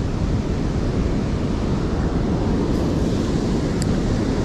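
Steady rushing of flowing river water, with wind buffeting the microphone.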